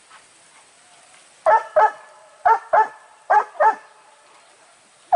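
Hunting dog barking on a boar hunt, in doubled barks: three pairs, six barks in all, starting about a second and a half in.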